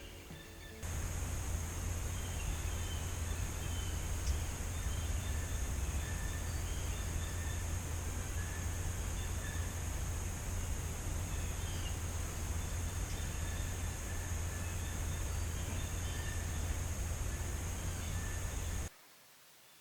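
Outdoor ambience: a steady low rumble with a constant high hiss, and faint scattered bird calls. It starts abruptly about a second in and cuts off near the end.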